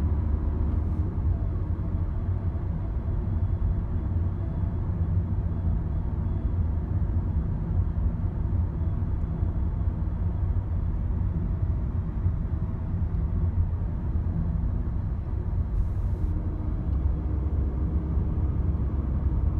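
Skoda Octavia Mk3 engine running steadily with a low, even rumble and a faint steady whine above it, the sound the owner calls weird.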